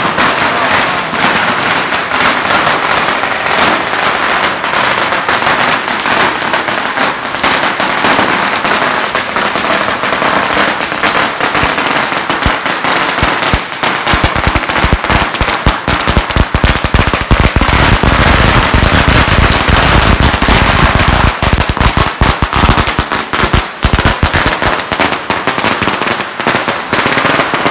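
Firecrackers going off in a rapid, continuous, very loud crackle. About halfway through, for roughly ten seconds, deeper and heavier bangs mix into the crackle.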